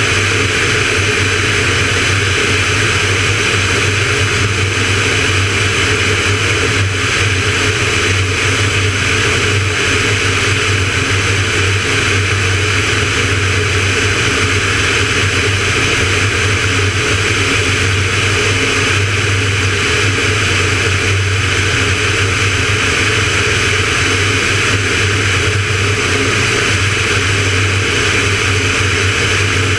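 Van's RV-9A light aircraft in flight: a steady drone from the piston engine and propeller, with an even hiss of rushing air.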